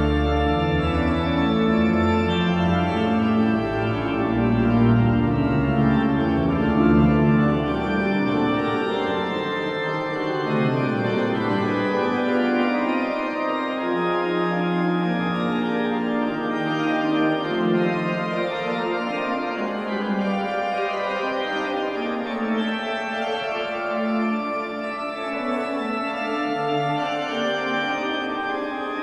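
Church pipe organ playing a classical piece in sustained chords and moving lines. Deep pedal notes sound under the manuals for about the first eight seconds, then drop out, and the music goes on in the middle and upper range.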